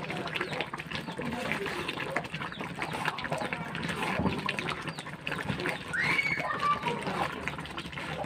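Thick coconut-sugar syrup bubbling and popping in a wok, stirred with a spatula through the sticky rice balls; the syrup is at the sticky stage when the kalamay is mixed. About six seconds in, a short high call is heard over it.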